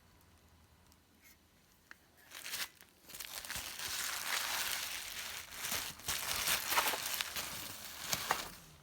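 Scratchy rustling and crinkling noise with scattered clicks, starting about three seconds in and going on for about five seconds.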